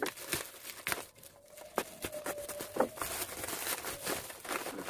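Thin black plastic mailer bag crinkling and rustling as it is pulled open by hand, a dense run of sharp crackles.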